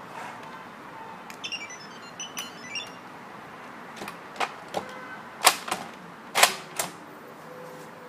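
Wulian smart door lock giving a short electronic chime of stepped beeps, then its lever handle being worked, with five or so sharp clicks of the latch mechanism, the loudest two about a second apart.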